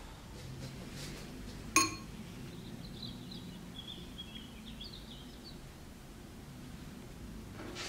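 A metal spoon clinks once, sharply and with a brief ring, against a glass bowl holding lemon peel in syrup, about two seconds in. Faint bird chirps sound in the background.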